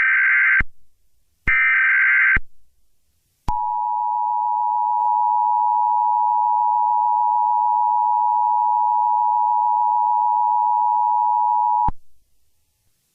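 Emergency Alert System broadcast signals: the end of one SAME header data burst and then a third full burst of harsh digital warbling, each about a second long. About three and a half seconds in, the two-tone EAS attention signal (853 and 960 Hz together) sounds steadily for about eight seconds, then cuts off suddenly.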